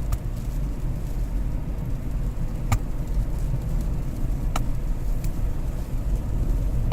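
Kia cee'd running, a steady low rumble of engine and road noise with a few faint clicks.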